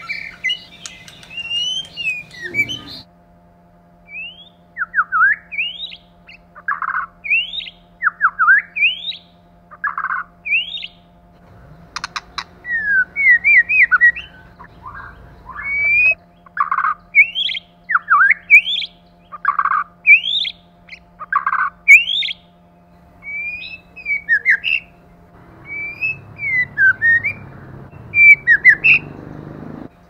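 White-rumped shama singing: a long run of clear whistled notes, mostly quick rising slurs, mixed with short lower notes that recur every second or two, with brief pauses between phrases.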